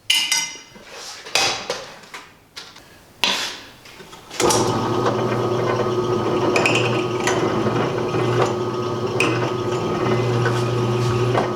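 A few sharp metal clinks and knocks, then a drill press motor starts about four seconds in and runs with a steady hum, drilling out a broken steel bolt in a tractor's power take-off housing.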